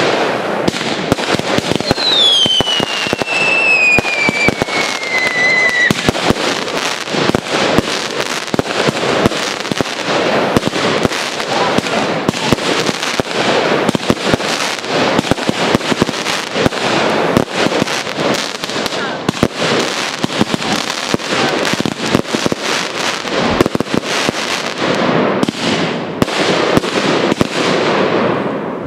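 Fireworks display: aerial shells bursting and crackling in a dense, continuous barrage. A whistle starts about two seconds in and falls steadily in pitch for about four seconds.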